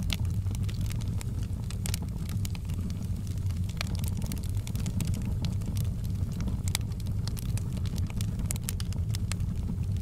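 Log fire burning in a fireplace: a steady low rumble of flames with frequent, irregular sharp crackles and pops from the burning wood.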